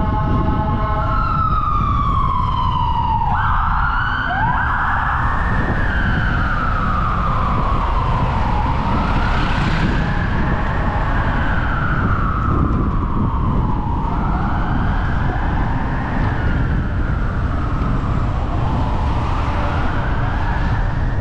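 Emergency vehicle siren on the wail setting, slowly rising and falling in pitch about every four to five seconds, over steady low road noise. In the first few seconds a held tone slides down, then two quick upward sweeps start the wail.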